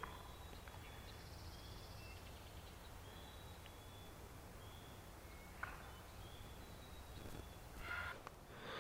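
Faint songbirds singing: short, thin, high whistled notes repeated every second or so, with a brief trill early on. A single click partway through and a soft rustle near the end.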